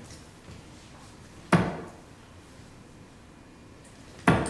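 Two steel-tip darts striking a Winmau bristle dartboard, each a sharp thud, about a second and a half in and again near the end.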